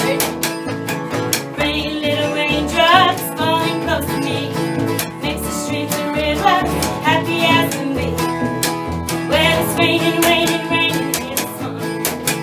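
Upright double bass and acoustic guitar playing a country-bluegrass tune, the bass plucked in a steady beat under strummed guitar, with a voice singing a few phrases.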